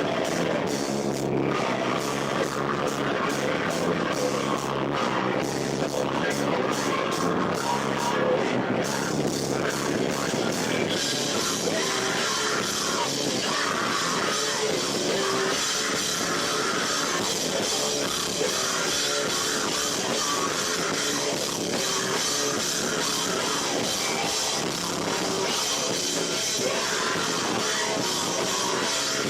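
A live rock band plays loud and continuously, recorded through a camera microphone that is overloaded by the room's echo, so the sound is harsh and smeared. About eleven seconds in, the top end gets brighter and hissier, as with cymbals coming in.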